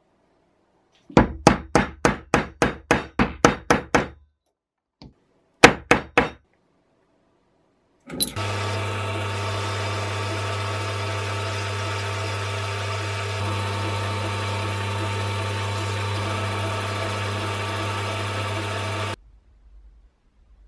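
Rapid sharp taps, about four a second for three seconds, on a small steel corker part resting on a wooden block, then three more taps after a short pause. An electric motor then starts and runs steadily for about eleven seconds, spinning the part while it is polished with abrasive mesh, and stops suddenly.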